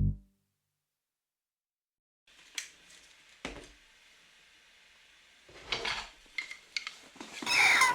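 Music cuts off, and after about two seconds of silence come a few light clicks and clatters of small hard objects in a room, busier and louder near the end.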